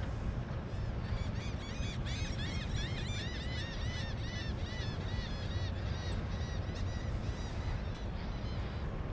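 A flock of birds calling, many short rising-and-falling calls overlapping, thickest between about one and seven seconds in, then thinning out. Under them is a steady low rumble.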